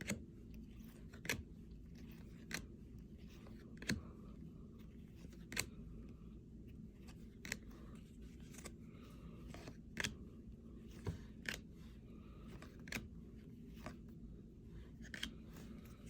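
Baseball trading cards being handled and sorted one by one, each card giving a sharp little snap or click every second or two, over a steady low hum.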